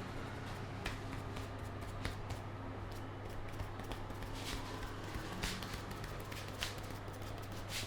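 Hands massaging a head: fingers rubbing the hair and scalp, with scattered light taps, over a steady low hum.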